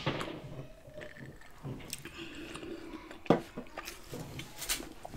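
Close-miked eating and drinking sounds: a sip and swallow from a glass, then quiet chewing and small wet mouth noises, with a sharp click at the start and another about three seconds in.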